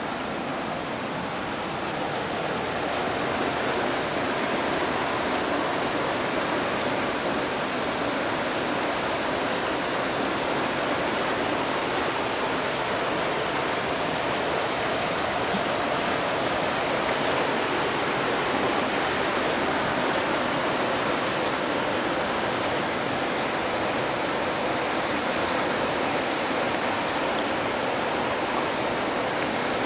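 Floodwater running fast across a street: a steady rush of moving water.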